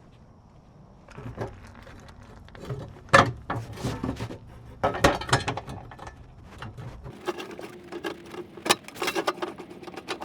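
Irregular clinks, clicks and knocks of hand tools and metal parts being handled while working under a car, with the sharpest knocks about three and five seconds in.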